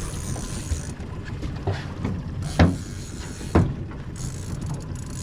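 Boat engine running at trolling speed under a steady wash of water and wind, with two short thumps about two and a half and three and a half seconds in.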